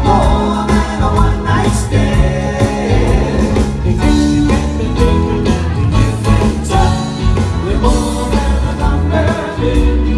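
Live band playing with a lead singer: a steady drum beat, bass and keyboards under the vocal.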